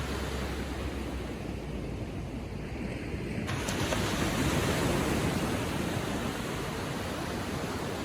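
Ocean waves lapping gently on the shore as a steady wash of surf, with a wave washing in louder about halfway through.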